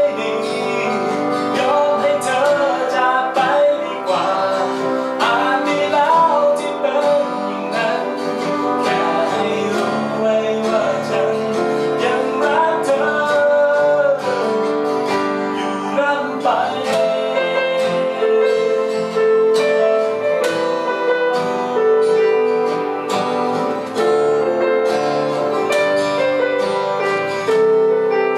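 Man singing with his own strummed acoustic guitar accompaniment, a steady mid-tempo strum under the melody.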